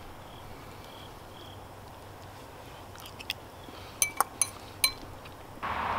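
A metal fork clinking against a ceramic bowl, a handful of short sharp clinks between about three and five seconds in.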